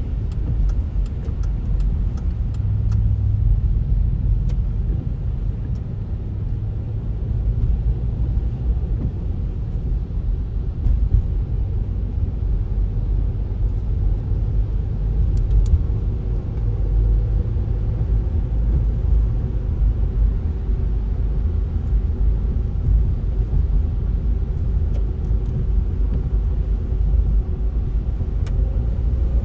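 Steady low rumble of a car driving on a wet highway, tyre and road noise heard from inside the cabin, with a few faint clicks.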